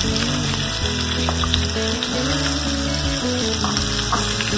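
Sliced onions sizzling in hot oil with green chillies and curry leaves in a nonstick frying pan, a steady hiss, with a wooden spatula stirring them near the end. Soft background music with held low notes plays along.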